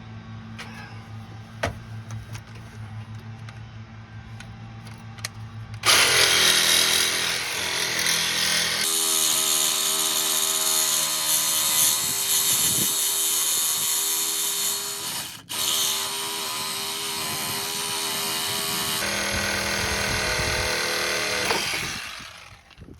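A low steady hum with a few clicks, then about six seconds in a power tool starts cutting through a stripped, seized sway bar link bolt on a car's rear suspension. It runs loud and steady with a brief dip about fifteen seconds in and stops near the end.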